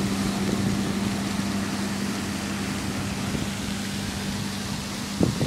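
Steady rushing hiss of a lake fountain's jet and falling spray, with a steady low hum underneath that stops shortly before the end.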